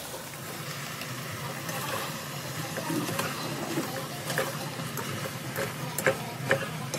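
Penne being stirred and turned in a non-stick pan with a plastic spatula, light scraping and scattered clicks of the spatula against the pan, more frequent in the second half, over a low steady sizzle from the pan.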